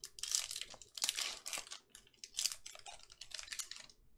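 Foil wrapper of a trading-card pack crinkling as it is torn open and pulled apart by hand, in four or five crackly bursts.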